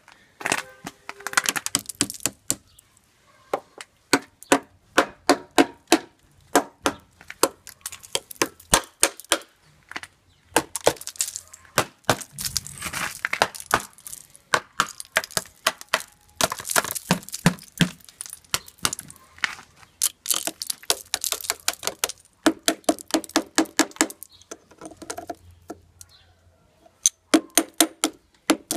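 Ice cracking and breaking off a small ice-encased motorbike: many sharp cracks, snaps and glassy clinks coming in clusters with short pauses, several ringing briefly.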